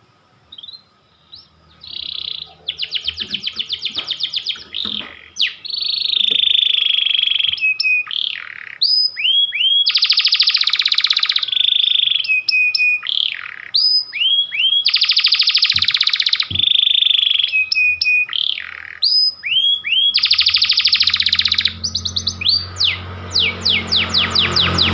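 Domestic canary singing a long, continuous song: a few separate chirps, then fast rattling trills alternating with held whistled notes and quick rising notes, repeated phrase after phrase.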